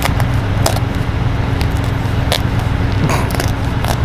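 A steady low hum with light clicks and crackles scattered through it, from a small cardboard box being handled.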